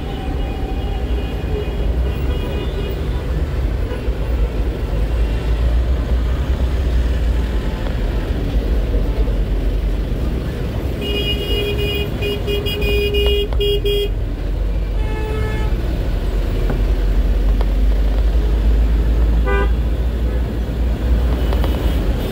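Steady low engine and road rumble from inside a vehicle moving through dense traffic, with other vehicles' horns honking over it. There are a few short toots in the first seconds, a loud run of horn honks about halfway through, a short toot just after, and a brief rapid beeping near the end.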